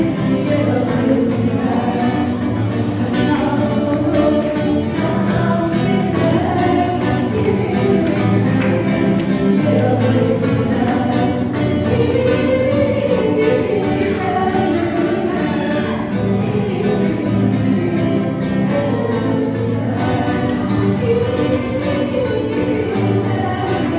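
Music: a singing voice carrying a melody over instrumental accompaniment, continuous throughout.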